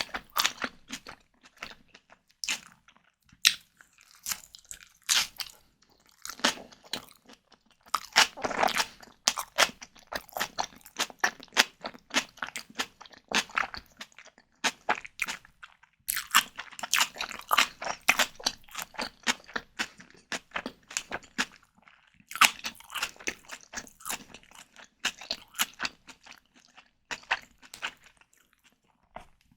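Close-miked mouth sounds of someone eating a white tiger prawn cocktail: chewing, with runs of wet, clicky crunching lasting a few seconds each, broken by short pauses.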